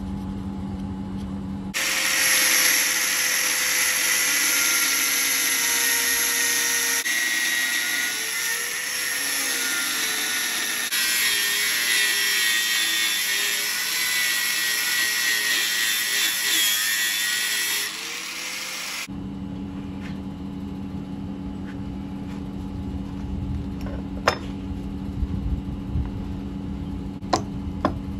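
Angle grinder with an abrasive cutoff disc cutting through the steel outer race of a scrap ball bearing: a loud, harsh grinding whine whose pitch wavers, starting about two seconds in and stopping sharply about ten seconds before the end. A steady low hum runs before and after the cut, and a few sharp metallic clinks come near the end as the split race and steel balls are handled.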